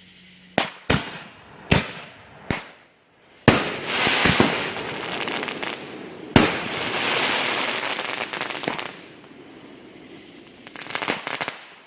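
Consumer fireworks going off: four sharp bangs in quick succession, then two louder bangs each followed by a couple of seconds of dense crackling, and a short burst of crackling near the end.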